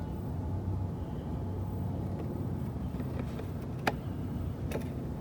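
Steady low engine hum with one sharp click a little under four seconds in and a weaker click just before the end.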